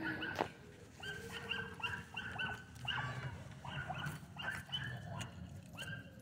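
A dog yipping in a quick series of short, high barks, about two a second. A single sharp knock comes about half a second in.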